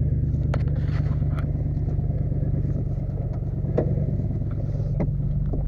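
Toyota Tundra pickup's engine running steadily, with a few light knocks over it.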